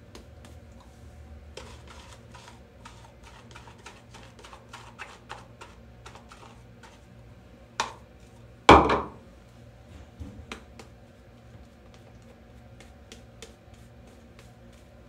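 Shaving brush working lather, a run of quick soft wet clicks. About halfway through comes a sharp knock and then a louder clunk with a brief ringing tail, followed by a few scattered clicks.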